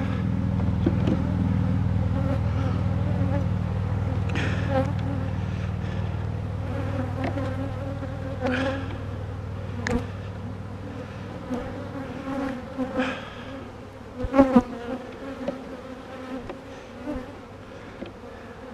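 Honeybees buzzing around an open hive. A low steady hum fades away over the first twelve seconds or so, and a few short knocks sound now and then.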